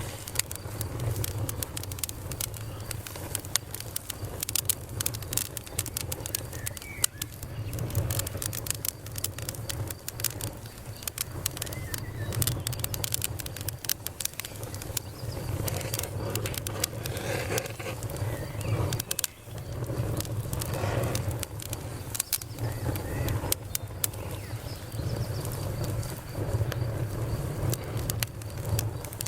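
Burning wood in a campfire crackling, with frequent sharp pops and snaps over a steady low rumble.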